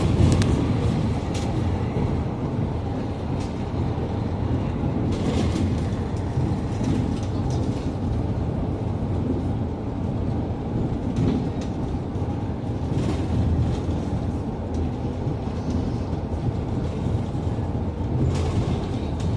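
Ride inside a Scania articulated city bus under way: steady engine and road noise, with occasional short rattles and clicks from the body.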